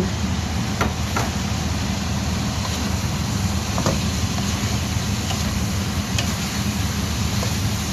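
Green beans frying in a wok under a steady low mechanical hum, with a few faint clicks.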